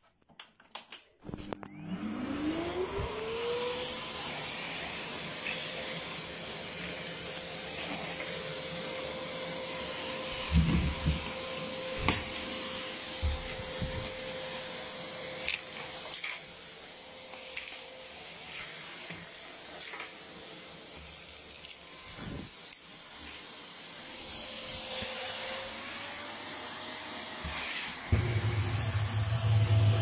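Vacuum cleaner switched on about a second in, its motor whine climbing as it spins up, then running steadily with a hiss of air through the hose. A few thumps come as items are drawn at the hose. Near the end the whine rises in pitch and a loud low hum comes in.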